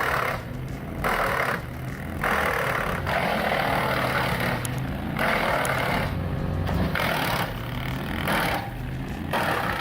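Engine-driven wood chipper running with a steady low engine hum, over which come repeated bursts of grinding noise, roughly one every second or so, as wood goes through it.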